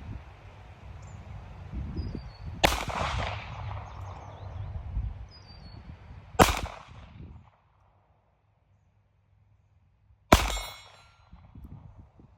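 Three shots from a Ruger LCP .380 pocket pistol, about four seconds apart. The third is followed by a brief metallic ring.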